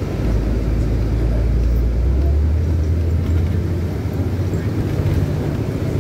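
City bus in motion heard from inside the cabin: a steady low engine drone with road noise. The drone rises in pitch about two seconds in and holds there.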